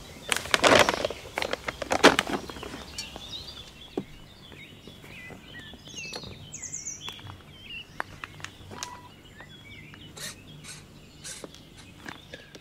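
Loud rustling and knocks of gear being handled in the first two seconds, then small birds chirping and twittering on and off, with light clicks of handling.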